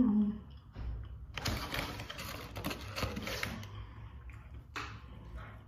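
A short hum of the voice at the very start, then about two seconds of dense crinkling from a paper or foil food wrapper being handled, with a shorter crinkle near the end.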